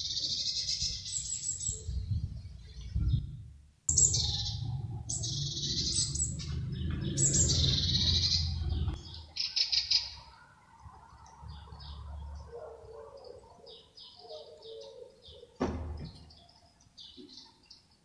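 Small songbird twittering in rapid high-pitched bursts, dense for about the first nine seconds, then sparser and fainter calls. A low rumble runs under the first half, and there is a single sharp click near the end.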